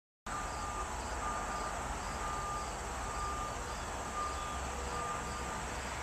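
Outdoor background that cuts in suddenly just after the start: a steady hiss and low rumble, with a faint pulsed tone repeating about once or twice a second and faint, higher, regular chirps, like insects calling.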